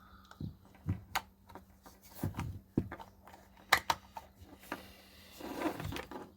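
Parts of a cordless SDS hammer drill being handled and fitted back together by hand: a string of separate sharp clicks and knocks, then a stretch of rubbing and shuffling near the end.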